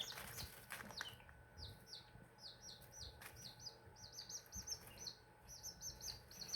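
Baby chicks peeping: a steady run of short, high, downward-sliding peeps, several a second, faint.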